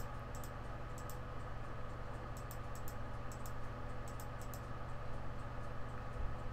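Scattered faint computer mouse clicks over a steady low electrical hum.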